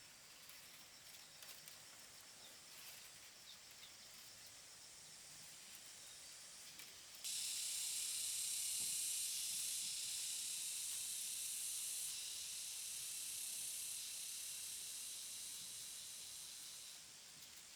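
A cicada breaks into song about seven seconds in: a loud, steady, high-pitched drone that slowly weakens and stops near the end. Fainter insect trilling is heard before it starts.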